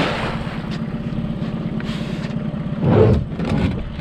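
Yamaha outboard motor running steadily at low speed as a steady low hum, with a louder dull thump about three seconds in.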